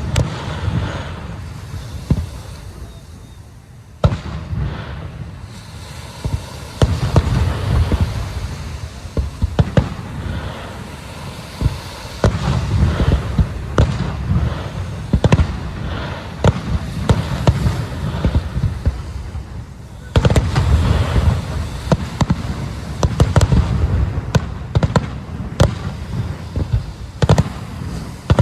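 Aerial fireworks display: a dense barrage of booming shell bursts and crackling. The barrage eases about two seconds in and picks up again with heavier volleys around four, twelve and twenty seconds in.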